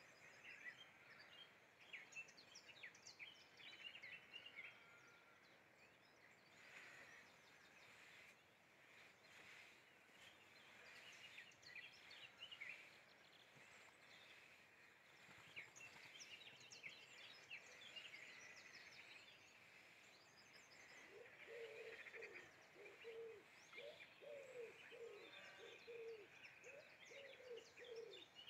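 Faint birdsong: several small birds chirping and trilling over a steady background hiss. In the last several seconds another bird adds a run of short, lower calls repeated about twice a second.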